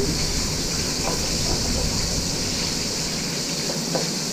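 Pieces of snowshoe hare meat searing in hot olive oil in a pot, sizzling steadily, with a couple of light taps from a wooden spoon stirring them.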